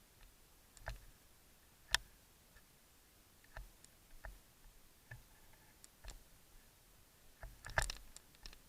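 Scattered sharp clicks and snaps at irregular intervals, the loudest a single crack about two seconds in and a quick cluster of them near the end.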